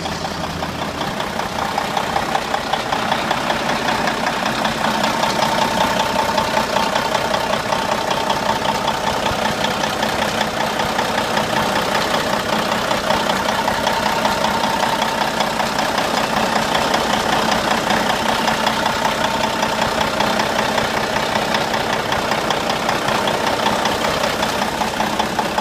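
Cummins N14 diesel engine of a heavy dump truck idling steadily, with the rapid, even clatter of a diesel.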